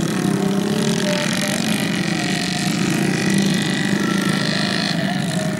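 Small motorcycle engines running steadily as the bikes ride slowly across a muddy paddy field, one of them carrying a sack of rice grain.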